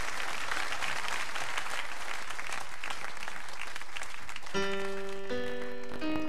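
Studio audience applauding. About four and a half seconds in, a piano starts up with single struck notes, three rising steps in a slow intro.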